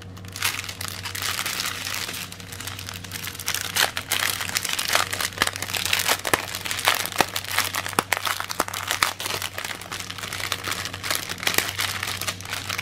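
Clear plastic bag crinkling as hands open and handle it, with the small packets of diamond-painting drills inside rustling and clicking against each other. A steady low hum runs underneath.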